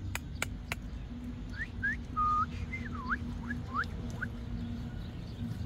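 A run of about eight short, high whistled notes, mostly quick rising chirps, with one held note near the middle that is the loudest, and a dipping swoop after it. Three sharp clicks come in the first second.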